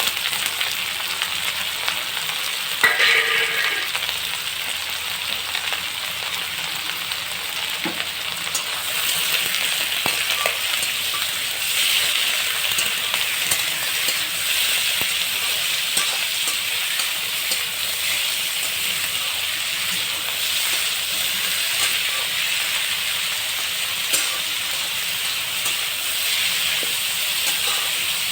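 Chicken pieces sizzling and frying in hot mustard oil in a kadai while being stirred. There is one short ringing clang about three seconds in.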